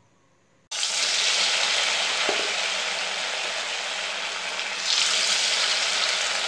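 Batter-coated idli pieces deep-frying in hot oil in a kadai: a steady sizzle that starts abruptly under a second in and swells louder about five seconds in.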